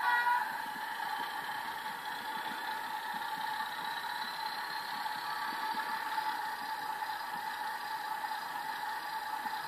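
Train Tech SFX 20 sound capsule in an O gauge Class 37 model loco playing a steady Class 37 diesel engine sound, triggered as if the loco were moving.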